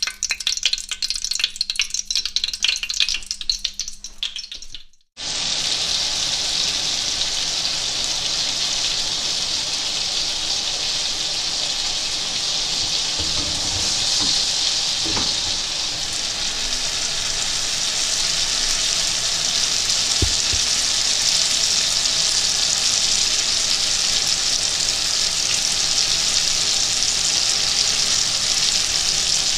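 Chicken frying in hot oil: crackling with stirring for the first few seconds, then, after a brief break, a steady sizzle with an occasional faint knock.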